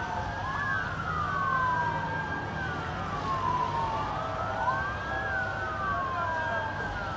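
Two or more emergency-vehicle sirens wailing at once, each slowly rising and falling in pitch and overlapping one another. A steady low rumble of engines runs underneath.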